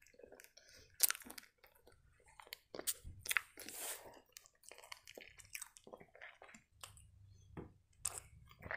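Close-miked chewing of food with a few crisp crunches, sharpest about a second in and around three seconds in. Near the end there is a sip from a cup.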